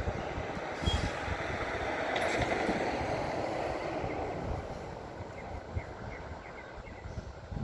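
A heavy vehicle's engine running, rising about two seconds in and then fading away.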